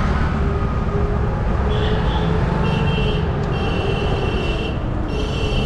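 Street traffic heard from a moving open rickshaw: a steady low rumble of road and wind noise, with a high-pitched tone sounding in several stretches from about two seconds in.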